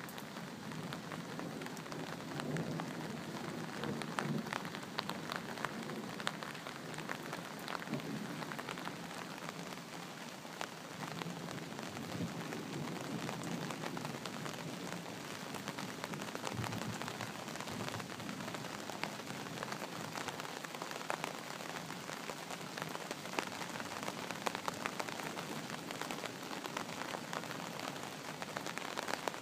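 Steady rain falling, with many close drop hits ticking through it. A low rumble of thunder swells a couple of seconds in and again around the middle.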